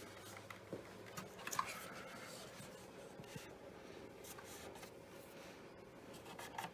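Faint scraping, rubbing and light clicks of hand work on car parts, with one sharper click about a second and a half in.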